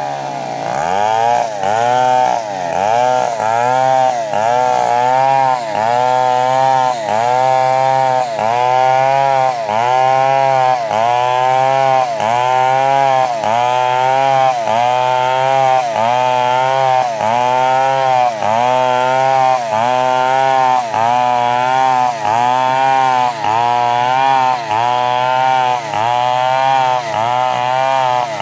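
Chainsaw engine running hard, its pitch rising and sagging in a regular cycle about once a second.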